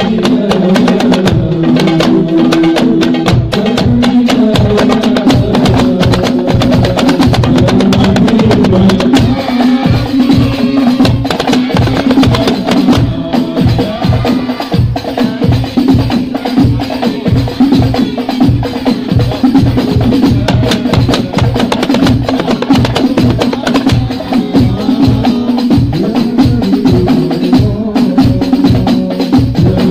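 Hadroh ensemble of rebana frame drums and a large bass frame drum played in a fast, dense rhythm, with voices singing a melody over it. The drumming grows denser about a third of the way in.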